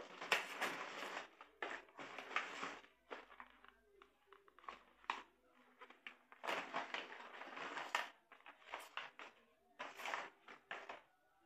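Plastic blister packs rustling, crinkling and clacking against each other as they are picked up and shuffled, with a plastic bag crinkling, in three bouts of handling noise with sharp clicks.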